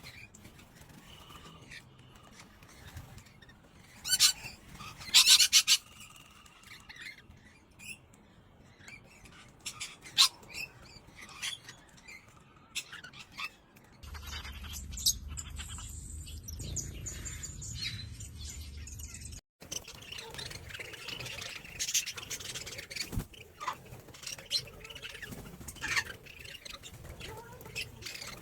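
Several birds chirping and calling in short, high notes, with the loudest calls about four to six seconds in. A stretch in the middle has a low steady rumble behind the birds and cuts off suddenly, as one recording gives way to another.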